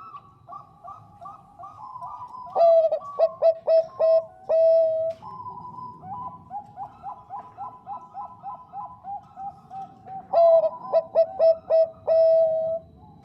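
Zebra dove (Bangkok-type perkutut) cooing: a quieter, continuous run of quick short coos. Twice it is broken by a much louder phrase of five or six staccato coos ending in a longer held note, about two and a half seconds in and again near ten seconds.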